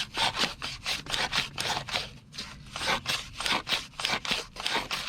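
Sandpaper rubbed by hand back and forth over a rusty metal shaft in quick, even strokes, about four to five a second, to clean off rust.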